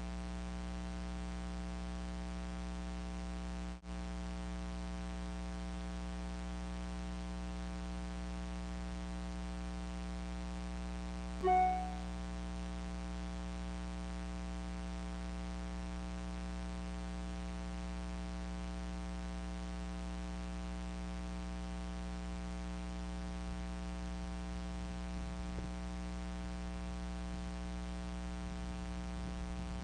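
Steady electrical hum and buzz from the nest camera's microphone feed. One short pitched note sounds about eleven seconds in.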